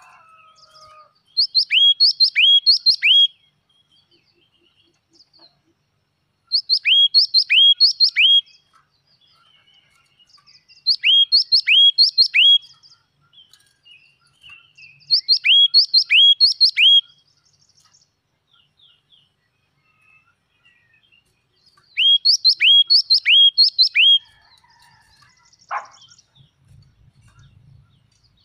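Yellow-cheeked tit singing: five loud phrases of three or four ringing notes, each note slurring down in pitch. The phrases are a few seconds apart, with a longer pause about two-thirds of the way through.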